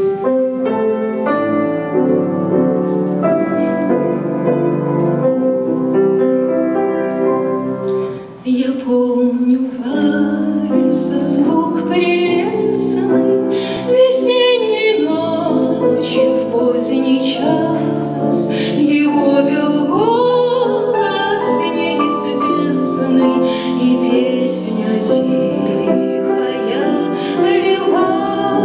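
Grand piano playing a waltz introduction; about eight seconds in, a woman's voice begins singing a Russian romance over the piano accompaniment.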